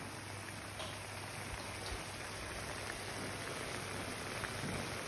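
Chicken and chorizo paella stock boiling hard with the rice in a wide paella pan on high heat: a steady bubbling, sizzling hiss with a few faint pops. The rice is still covered by the liquid, which is reducing.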